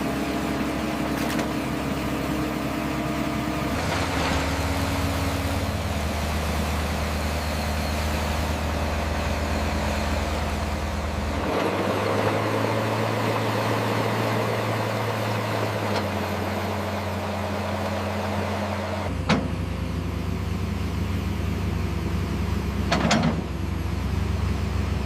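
RC construction machines running with a steady, engine-like hum that shifts in pitch a few times, and two sharp clicks near the end.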